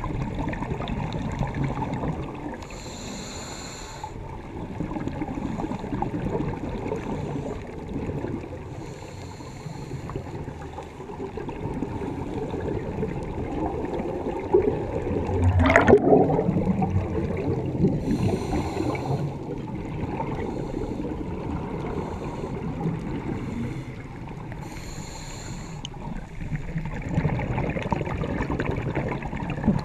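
Scuba regulator breathing heard underwater: a short hissing inhale about every six or seven seconds, and between them the low rumbling gurgle of exhaled bubbles. About halfway through comes one louder surge of bubbling, the loudest moment.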